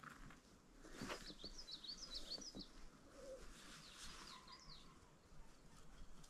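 Faint bird chirping: two short runs of quick, wavering high chirps, the first about a second in and the second about four seconds in, with a few faint knocks.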